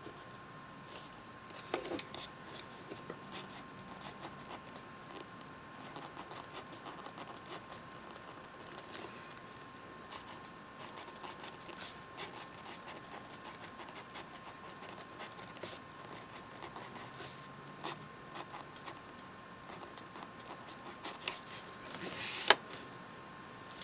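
Pen writing on lined spiral-notebook paper: a continuous run of small, irregular scratches and taps as words are written. A louder rustle of the paper comes near the end.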